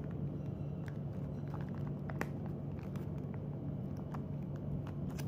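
Scattered light clicks and taps of a Redmi K20 Pro fitted with tempered glass being pressed and handled inside a snug phone cover, over a steady low hum.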